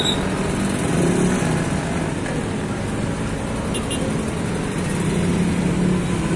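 Steady road traffic noise: vehicle engines running with a continuous low hum and no clear single event.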